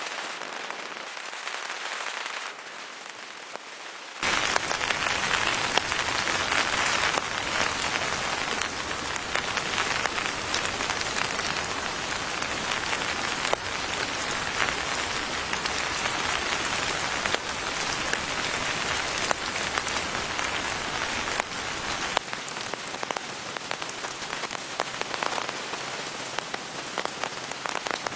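Rain pattering steadily and densely on a surface, coming in abruptly and louder about four seconds in after a thinner, quieter hiss.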